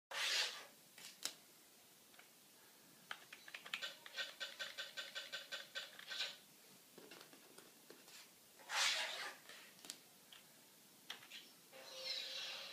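Computer keyboard keys clicking as the Novomatic Gaminator slot-machine board is operated. About four seconds in, a rapid run of electronic beeps lasts about two seconds from the slot machine's speakers, the credit-in sound on the 'Remote In' screen. Two brief rushes of noise come at the start and about nine seconds in, and a short electronic tone sounds near the end.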